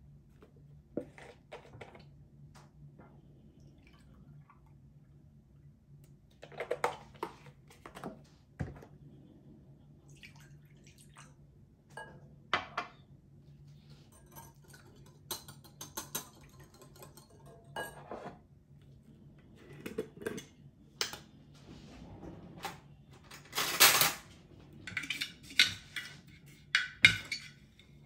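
Scattered clinks, knocks and clatters of hard objects being handled, over a faint steady low hum; they come thicker and louder near the end.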